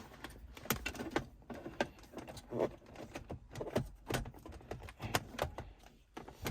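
Irregular light clicks and taps of small plastic parts being handled and fitted during a car radio install, several a second.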